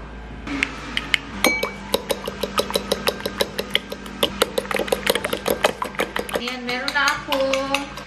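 A metal utensil clinking rapidly against a glass bowl as raw eggs are beaten, starting about a second and a half in. Near the end the clinking gives way to a wavering voice.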